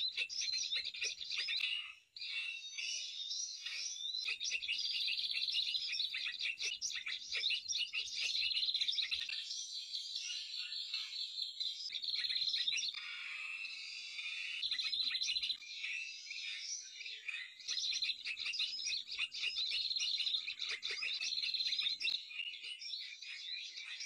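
Dense, continuous twittering and chirping of small songbirds from a bird-lure call, played to draw birds to lime sticks. It starts abruptly, with a short break about two seconds in.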